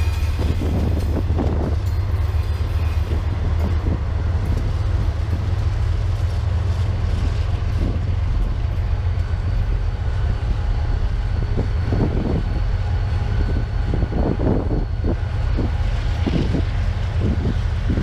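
BNSF manifest freight train passing close by: diesel locomotives rumbling past, then freight cars rolling by with their wheels clacking over the rail joints in uneven bunches in the last third.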